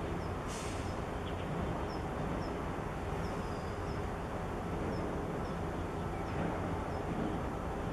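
Steady low drone and rumble of a large oil products tanker under way, with faint short high chirps scattered throughout.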